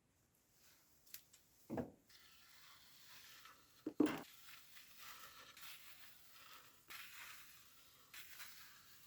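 Brushing rust off a steel knife blade: a steady scratchy scrubbing that begins about two seconds in, with a knock just before it starts and a louder knock about four seconds in.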